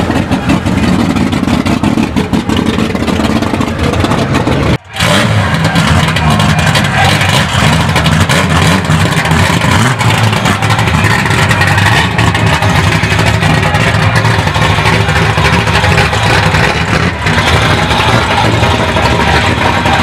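Chevrolet Opala straight-six engines running loudly, revved at times, with a brief break in the sound about five seconds in.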